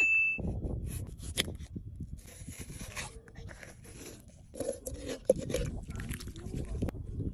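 Knife cutting and scraping into a watermelon: irregular crunches and scrapes of rind and flesh being cut.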